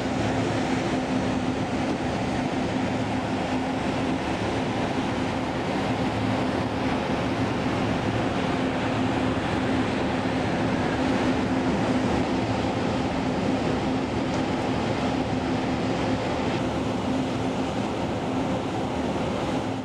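Steady rumbling, rushing noise with a constant low hum, from a large car ferry's machinery and ventilation fans heard on its open deck.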